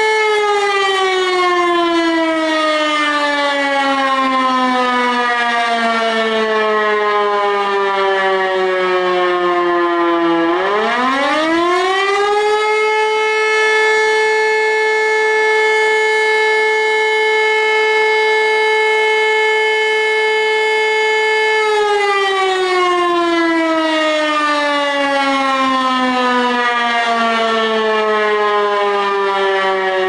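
E57 electromechanical fire-brigade siren on a roof mast, sounding for the monthly siren test. Its wail winds down in pitch for about ten seconds, runs back up within two or three seconds to a steady high tone held for about nine seconds, then winds down again near the end.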